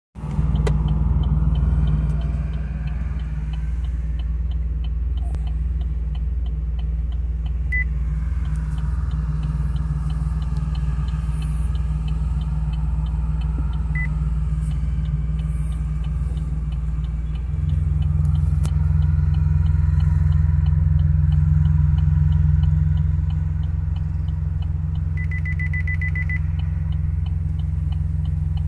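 Chevrolet Onix heard from inside the cabin, a steady low rumble of engine and tyres while creeping slowly, growing louder a little past halfway. Over it, light quick regular ticking through the first half, two single short beeps, and near the end a quick string of beeps from the parking assist as it finds a space.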